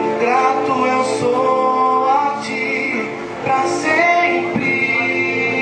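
Worship song: voices singing a sustained melody over instrumental accompaniment.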